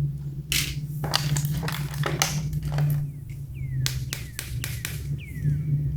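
Plastic toy pieces and packaging handled by hand: a run of sharp clicks and taps, with two short falling squeaks, over a low steady hum.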